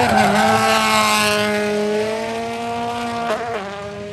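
Toyota GR Yaris WRC rally car's turbocharged four-cylinder engine held at high revs through a drift, with tyre squeal around a second in. A short crack comes a little past three seconds, and the engine note fades as the car pulls away.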